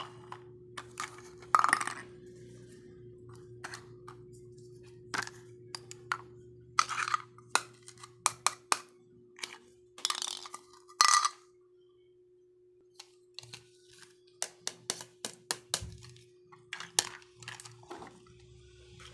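Pieces of a toy cooking set clinking and tapping as they are handled: many separate sharp clicks, some in quick runs of two or three, over a steady low hum.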